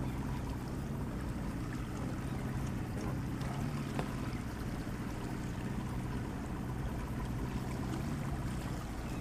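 A boat's motor running steadily with a low, even hum, under wind and water noise against the hull.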